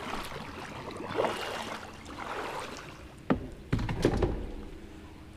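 Kayak and paddle scraping along and knocking against a corrugated metal culvert pipe as the kayak is pushed into it: rustling and scraping, then two sharp knocks a little over three seconds in and a hollow thud just after.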